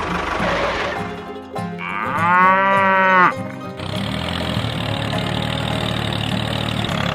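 A cow moos once, a single drawn-out call of about a second and a half that rises and then falls away in pitch, over steady background noise.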